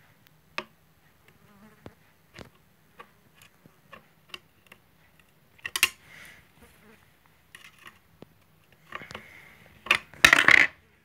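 Small metallic clicks and taps of a feed dog being set on a Juki DDL-8700 industrial sewing machine, with two louder rattling scrapes about six and ten seconds in, over a faint steady low hum.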